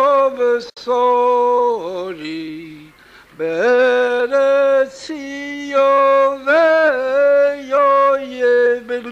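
A man's voice singing a slow Hasidic melody solo, in long held notes with a falling slide about two seconds in.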